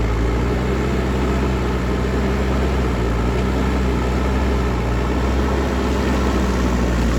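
JCB backhoe loader's diesel engine running steadily at constant speed.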